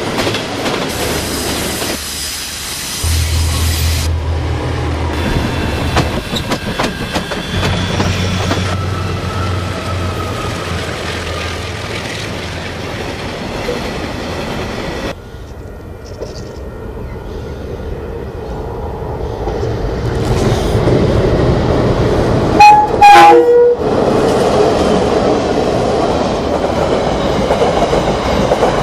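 KiwiRail diesel-hauled trains passing close by: locomotive engines running under load, and wagons and carriages rumbling and clattering over the rails. The sound changes abruptly at several cuts between clips, and a loud train horn sounds in short blasts about three-quarters of the way through.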